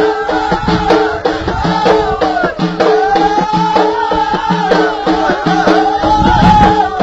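Amazigh ahidous folk music: voices singing repeated arching phrases over bendir frame drums beating a steady rhythm.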